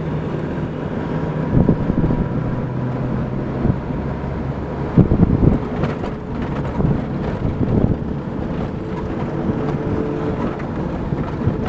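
Engine and road noise inside a moving vehicle's cab: a steady low engine drone, with a few short thumps about 2 and 5 seconds in.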